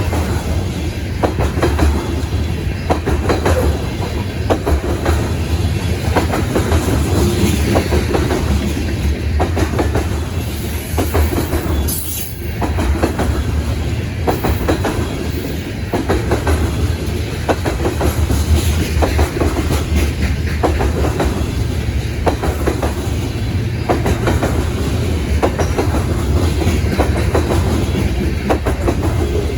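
A long train rolling steadily past, with a deep rumble and a rhythmic clickety-clack of the wheels over rail joints that repeats throughout.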